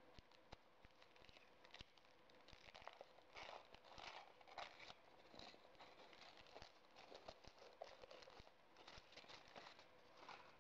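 Foil wrapper of a Chupa Chups chocolate surprise ball being peeled off and crinkled by hand. It is faint, irregular crackling and rustling, thickest in spells a few seconds in and again near the end.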